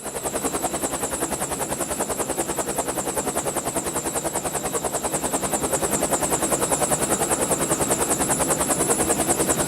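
Helicopter rotor chopping in a rapid, even beat of about ten a second, with a high hiss over it, slowly getting louder.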